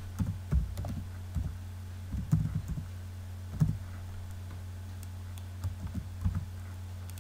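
Computer keyboard typing in short irregular bursts of key clicks with pauses between them, over a steady low hum.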